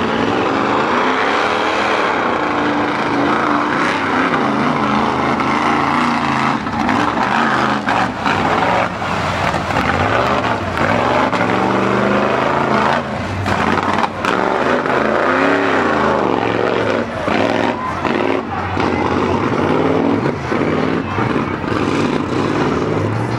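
Mud bog truck's engine running hard at high revs as the truck churns through a flooded mud pit on tractor tires, the revs rising and falling again and again with short dips.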